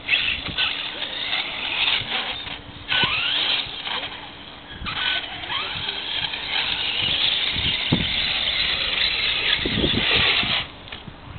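Radio-controlled monster truck's motor revving up and down as it drives over grass and climbs a dirt bank, falling away near the end.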